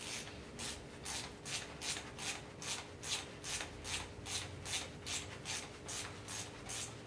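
Rhythmic rasping strokes, about two a second, from hand-tool work on an engine, over a faint steady hum.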